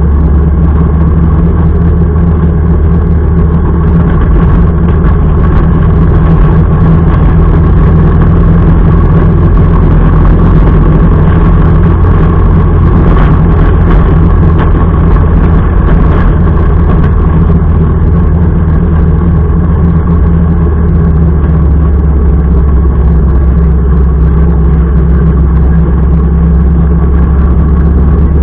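Motorcycle engine running steadily at an even cruise, loud and unchanging in pitch, heard from on the bike.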